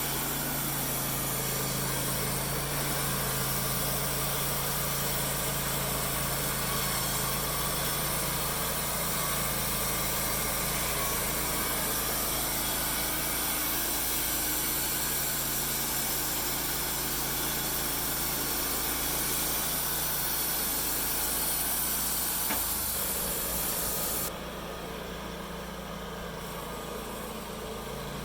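An engine running steadily with a bright hiss over it. About 24 seconds in the hiss drops away and the sound falls to a quieter, lower hum.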